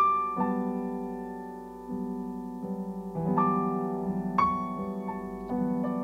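Slow, sustained piano chords played on a digital stage keyboard, with a new chord or note struck every second or so and left ringing. The strongest strikes come at the very start and about four seconds in.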